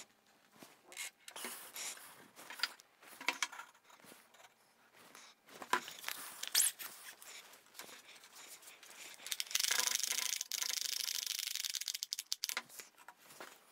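Light clicks, knocks and scrapes as glued, mitred walnut frame strips are pushed together, then a frame strap clamp's band pulled tight around the frame with a steady, rapid zipping rattle for about three seconds, about two-thirds of the way in.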